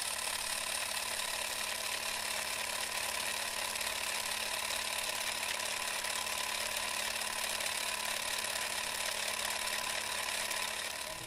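Film-projector sound effect: a steady mechanical clatter with hiss, cutting off abruptly near the end.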